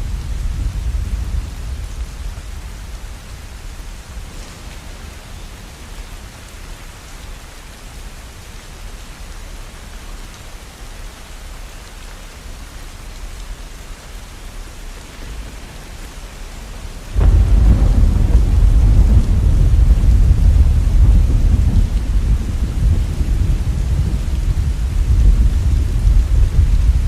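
Steady rainfall with thunder. A low rumble dies away over the first few seconds, then about two-thirds of the way in a sudden loud thunderclap breaks and rumbles on through the rest.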